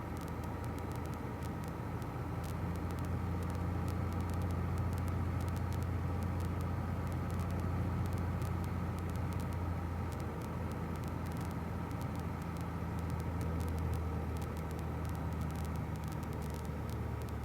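1966 Cessna 172G's six-cylinder Continental engine running at reduced power on final approach, a steady low drone with cockpit noise.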